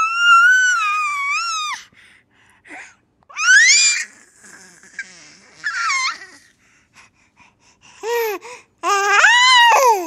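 A baby squealing and shrieking with laughter. A long high squeal comes at the start, shorter rising squeals follow a few seconds in, and two arched squeals come near the end, with short quiet gaps between.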